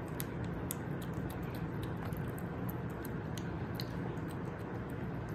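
Kitten chewing wet cat food from a steel bowl: small irregular wet clicks, several a second, over a steady low hum.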